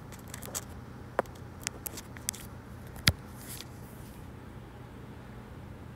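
A few small sharp clicks and rustles of a charging cable being handled and plugged into an iPhone, the sharpest click about three seconds in, over a low steady hum.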